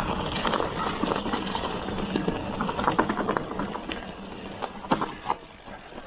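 Ragley Big Wig hardtail mountain bike riding fast over a dirt woodland trail: tyres rolling over dirt and roots with a dense clattering rattle from the bike. It eases off after about four seconds, leaving a few sharp clacks near the end.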